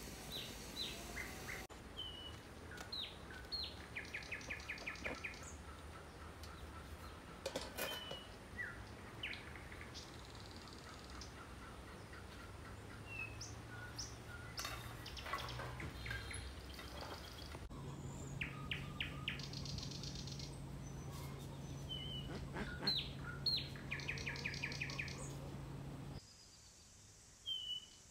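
Songbirds chirping and trilling in short, repeated phrases, with a faint steady low hum underneath for part of the time.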